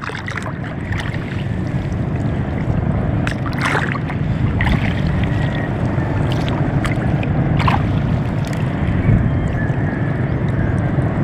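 Small boat moving over open water: a steady rush of water against the hull with wind buffeting the microphone, broken by a few brief splashes.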